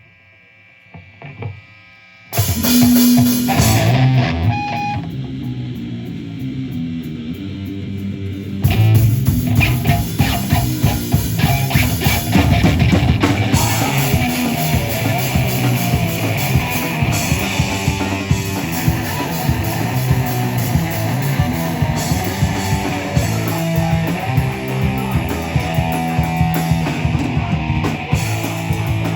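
Live heavy rock band starting a song: after a quiet couple of seconds, a loud distorted guitar chord rings out and slowly fades. About eight and a half seconds in, drums, bass and guitars come in together and play loud and dense.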